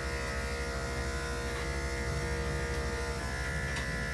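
Electric dog grooming clippers running steadily with a continuous buzzing hum while clipping a dog's coat.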